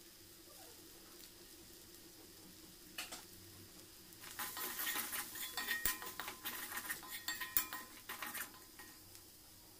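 Steel spoon stirring fried legumes in a steel kadai: one knock about three seconds in, then a run of clinks and scrapes of spoon against pan for about four seconds, over a faint steady sizzle.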